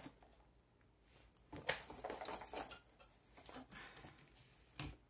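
Faint rustling and light knocks of a long cardboard kit box and a plastic-wrapped canvas roll being handled, with a soft thump near the end.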